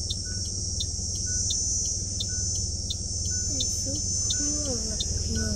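Steady, high-pitched chorus of insects buzzing, with an even high tick repeating about every three-quarters of a second and a low hum underneath.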